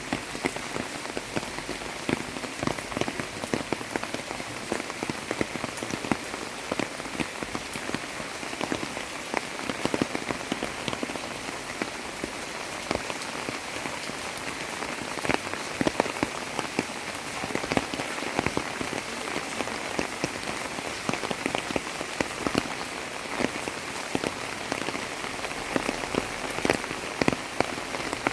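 Steady monsoon rain falling on a hard surface, an even hiss dotted with frequent sharp drips and drop ticks.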